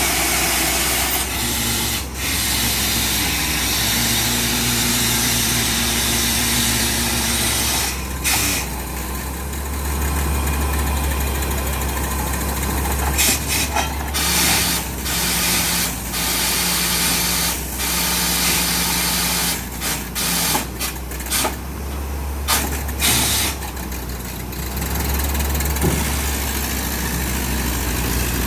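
The engine of a bore drilling machine running steadily at a deep tube well, under a steady wash of mechanical noise, with a few sharp knocks along the way.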